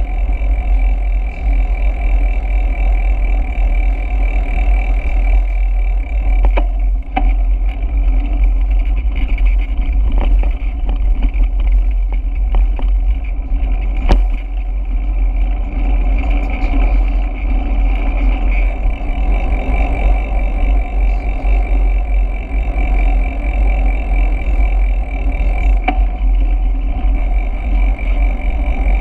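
Wind rushing over the microphone of a camera riding on a moving bicycle, with steady tyre and road noise and a few sharp knocks from bumps, the loudest about fourteen seconds in.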